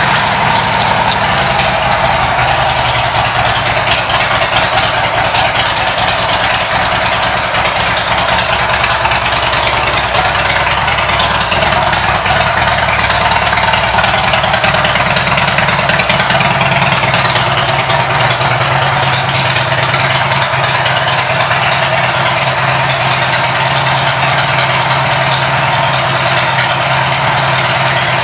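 A 2007 Harley-Davidson Ultra Classic's Twin Cam 96 V-twin idling steadily and loudly through a Rinehart aftermarket exhaust, shortly after a start.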